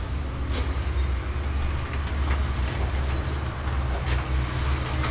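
Caterpillar 320D hydraulic excavator's six-cylinder diesel engine running steadily as the machine works and swings its boom, a continuous low drone with a few faint knocks.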